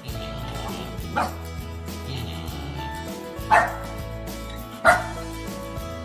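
A husky gives three short yips: one about a second in, then two louder ones about a second apart past the middle. Background music plays throughout.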